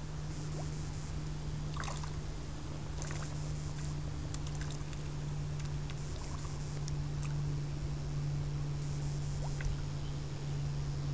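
A steady low hum over a constant faint hiss, with a few faint short clicks or chirps.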